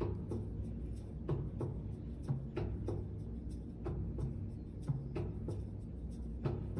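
Music with a slow drum beat: strikes mostly in pairs, repeating about every second and a quarter, over a low steady drone.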